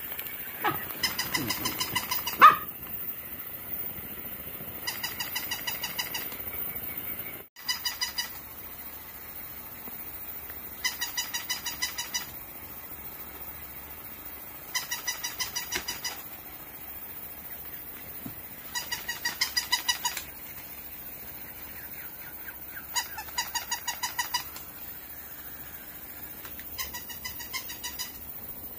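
A dog's sound-making toy gives off a short, rapid chirping trill that repeats about every four seconds, with a sharp click near the start.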